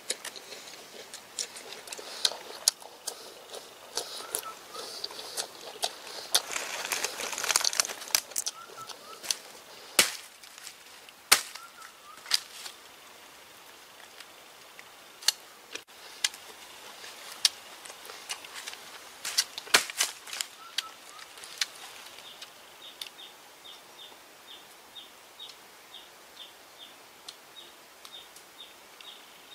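Hands tearing and snapping a split, fibrous plant stem apart: crisp cracks of fibre giving way and a rustling tear, louder around the middle. In the last third a high, even tick repeats a little over twice a second.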